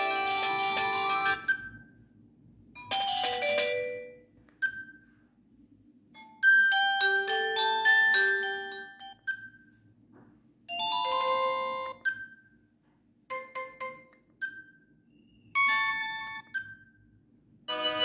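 Alcatel OT-222 flip phone's speaker playing short previews of its MIDI ringtones one after another, each cut off after one to three seconds as the next one is selected. A short single beep from the keypad sounds in most of the gaps between them.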